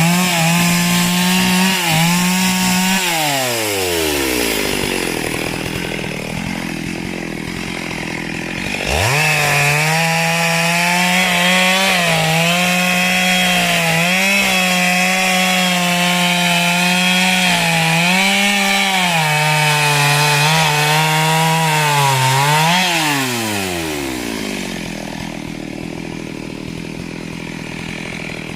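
Two-stroke chainsaw at full throttle cutting wood. It drops to idle about three seconds in, revs back up about nine seconds in and holds high revs with small dips under load for about fourteen seconds, then falls back to idle near the end.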